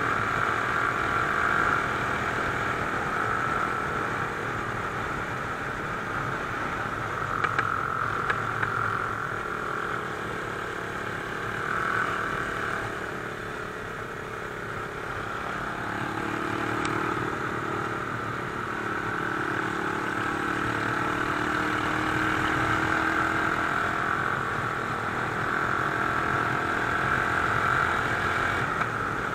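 Mash Cafe Racer 250 motorcycle engine running at road speed, heard from a handlebar-mounted camera, its note easing off in the middle and picking up again toward the end.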